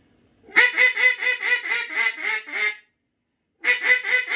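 Acrylic Big Bore mallard duck call blown in a quick run of about ten hen-mallard quacks, roughly four a second, each dropping in pitch and the run fading slightly. After a short pause a second run of quacks begins near the end.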